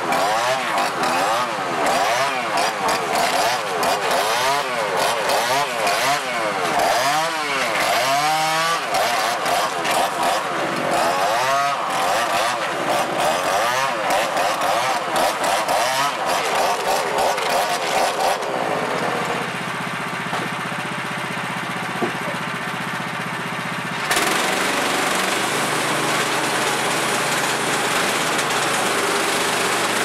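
Chainsaw revving up and down over and over, its pitch rising and falling in quick repeated swells for about 18 seconds. Then a steady engine runs, getting louder and hissier about 24 seconds in.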